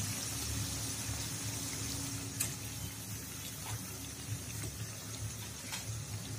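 Fish curry gravy bubbling steadily in a kadhai, its water just added to the masala. A couple of faint clicks come about two and a half and six seconds in.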